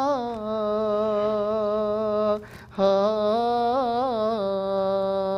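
A man singing a wordless nasheed melody on long held vowels, unaccompanied, with small wavering ornaments on the notes. He breaks for a breath about two and a half seconds in, then carries on. This is the base melody line meant to be layered into a vocal chorus.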